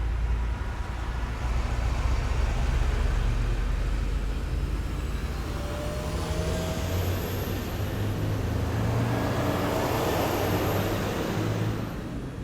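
Heavy military vehicles driving past, their engines giving a steady low rumble. A thin high whine rises about halfway through, holds, and cuts off near the end as the noise drops away.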